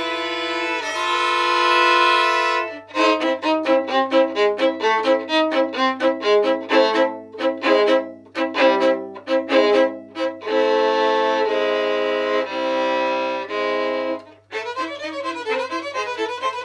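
Two violins playing a duet: held notes, then a passage of short, separated notes from about three seconds in, long held notes again around the middle, and quick running notes near the end.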